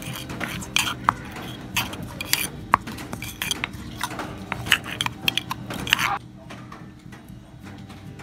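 Stone pestle pounding and a metal spoon clinking and scraping in a stone mortar, working chillies and garlic into a wet dipping sauce, in irregular sharp knocks that stop about six seconds in.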